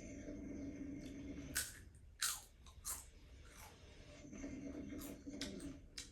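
A cat chewing crunchy food: a handful of sharp crunches, with a steady low hum heard twice for about a second and a half each.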